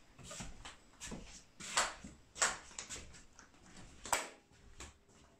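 A series of irregular knocks and clicks in a small room, the sharpest about two, two and a half and four seconds in.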